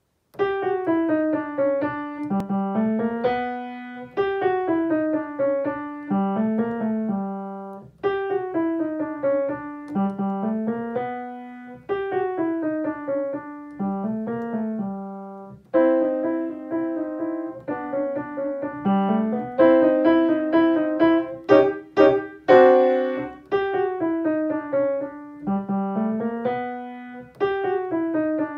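Solo acoustic piano playing a simple two-hand teaching piece in short melodic phrases about four seconds long, with fuller, louder chords about two-thirds of the way through.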